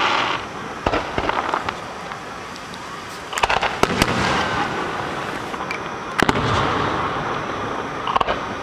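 Fireworks display: a run of sharp bangs from bursting shells, with the loudest about three and a half seconds in and just after six seconds, each trailed by a wash of noise.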